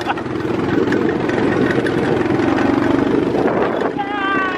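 ATV (four-wheeler) engine running steadily while riding across a field. Near the end a short whine falls in pitch over it.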